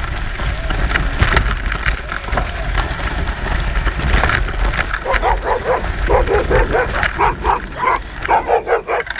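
Dog barking in a quick run of short barks, about three a second, starting about halfway through, over a steady low rumble.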